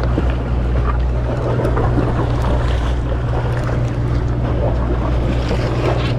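A sportfishing boat's machinery drones in a steady low hum, with wind on the microphone and water wash over it.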